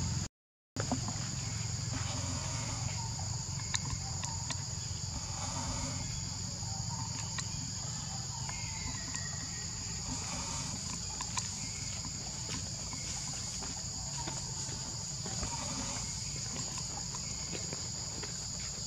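A steady, high-pitched chorus of insects in tropical forest, droning without a break, with a few faint ticks over it.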